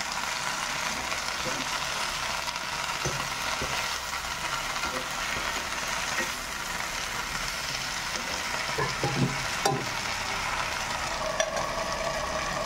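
Leafy greens sizzling in hot oil in a dark wok, stirred and scraped with a steel ladle that clicks and knocks against the pan. Near the end a steel lid is set on the pan with a short metallic ring.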